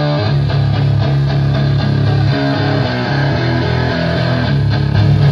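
A live metal band's electric guitars and bass playing held chords, which change every second or so and grow louder near the end.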